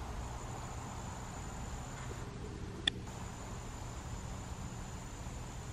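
Distant low rumble of a British Airways Boeing 777-200 jet climbing out overhead, with a steady high insect note over it. A single sharp click about three seconds in.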